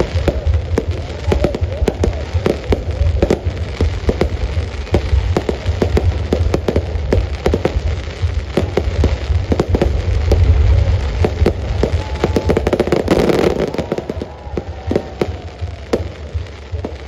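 Aerial fireworks going off overhead: a dense, rapid crackling from glittering crackle shells over a constant deep rumble of bursts. About three-quarters of the way through, one burst is louder and fuller than the rest.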